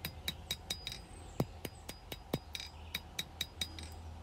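Blacksmith's hand hammer striking hot steel on an anvil in quick, even blows, about four or five a second, each with a short metallic ring: drawing down the point of a small knife blade. A steady low hum runs underneath.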